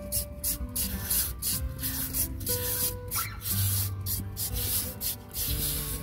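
Handheld serrated shredders scraping down a papaya in quick, repeated strokes, each stroke a short rasp as the flesh is cut into thin strands, about two to three strokes a second.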